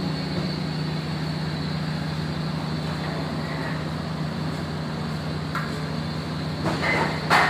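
Steam boiler plant feeding a rasgulla kettle, running with a steady hum under an even hiss. A short knock sounds near the end.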